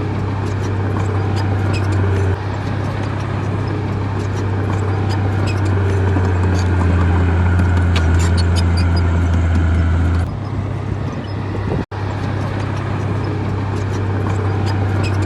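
Diesel engine of a heavy earthmoving machine, a bulldozer or excavator, running under load with a steady low drone and scattered light clicks and clanks over it. The sound changes abruptly about two and ten seconds in and drops out for a moment near twelve seconds.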